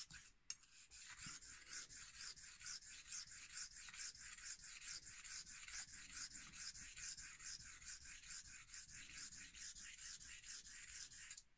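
Straight razor blade scraping back and forth on a synthetic whetstone in quick short strokes, about four a second, setting the bevel and working up a burr on the edge.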